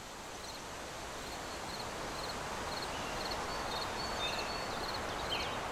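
Outdoor ambience fading in: a steady wash of noise with small birds chirping, short high chirps at first and quicker, sweeping calls near the end.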